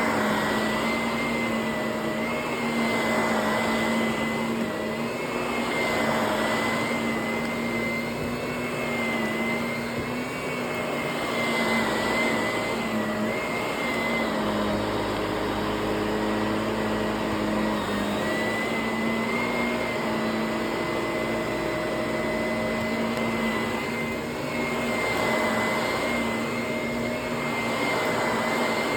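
Vacuum cleaner running on carpet: a steady motor whine under a rushing air noise that swells and fades every few seconds. Its pitch shifts slightly for a few seconds midway.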